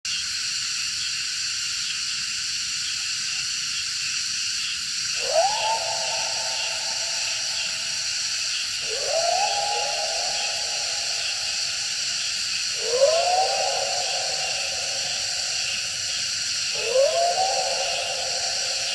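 Whale calls: four long calls about four seconds apart, each sweeping quickly up in pitch and then held, over a steady high hiss.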